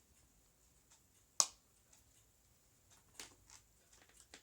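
One sharp click about a second and a half in, then a few fainter clicks later on: a screwdriver and the small hinge screws being handled while the laptop's hinge screws are taken out.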